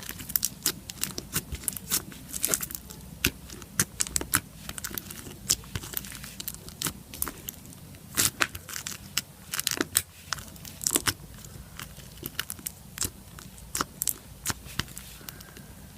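White clicky slime being stretched and squeezed by hand, giving off irregular sharp clicks and pops several times a second.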